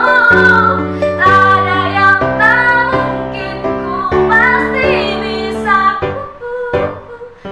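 A girl's solo voice singing a song with grand piano accompaniment, holding long notes over the piano chords. The voice falls away about six seconds in, leaving softer piano chords.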